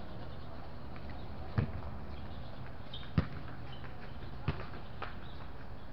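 Three sharp thumps of a ball striking a hard sports court, each more than a second apart, the middle one loudest, over a steady low background rumble.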